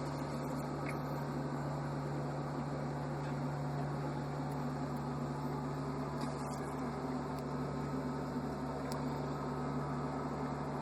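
A steady low hum under an even hiss, unchanging throughout, with a few faint ticks.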